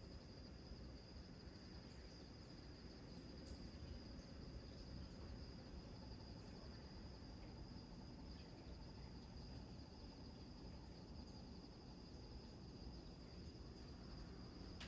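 Crickets chirping in a steady high trill, faint, over a low even rush of surf.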